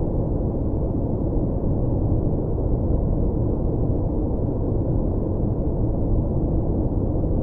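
Steady synthetic noise track played as white noise for studying or sleep. It is deep and muffled, a low rumble with no high hiss, and it does not change.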